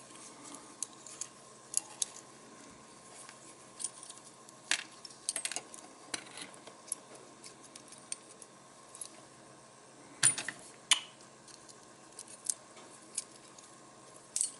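Small parts of a vintage Firebird butane lighter clicking and tapping as they are handled and fitted back together: scattered light clicks, the loudest two close together about ten seconds in.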